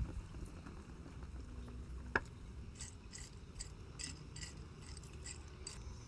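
Ice clinking in a cup of iced coffee as it is stirred with a straw: one sharp click a little over two seconds in, then a run of light clicks, about three a second, lasting some three seconds.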